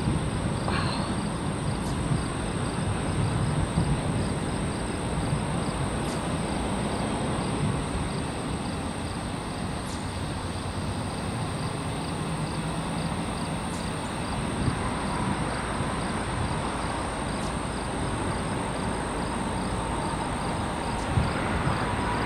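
Distant thunder rumbling on and on, low and strongest in the first few seconds, over a steady outdoor hiss.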